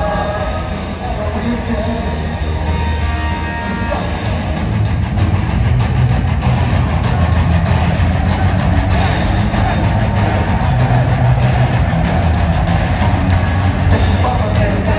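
Punk rock band playing live: electric guitars, bass and a drum kit, grows louder and fuller about five seconds in.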